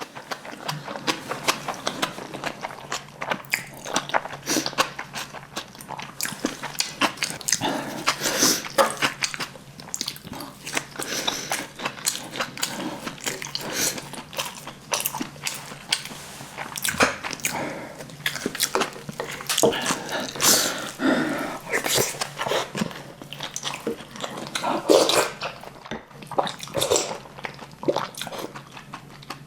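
A person eating close to the microphone: steady chewing and biting, with many quick wet mouth clicks and smacks and a few louder bites throughout.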